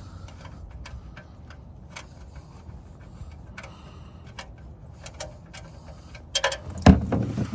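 Light, irregular clicks as the oil drain plug is turned out by hand, then near the end a loud clatter and a heavy thump as the plug comes free and hot engine oil starts pouring into the drain pan.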